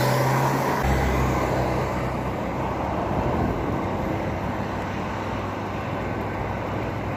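Steady rush of wind and road noise from a bicycle riding along a paved road, with a low hum through the first couple of seconds.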